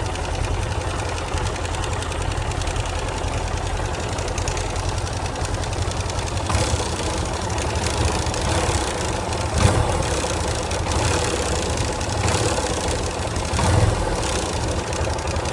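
Yamaha Fazer 250 single-cylinder engine running with a rapid 'tec-tec' ticking noise. The noise comes from a non-original starter clutch plate whose needle bearings wore and ate into the crankshaft.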